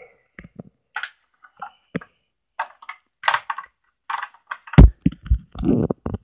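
Scattered clicks and rustles of things being handled and the camera being moved, then a few heavy thumps near the end.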